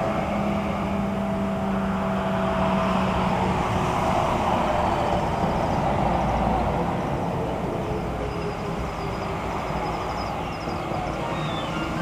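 A road vehicle driving past, its engine and tyre noise swelling to a peak around the middle and then fading away.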